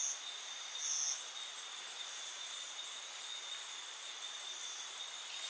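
A steady, high-pitched chorus of insects, pulsing a few times a second, with a couple of short, higher chirps near the start.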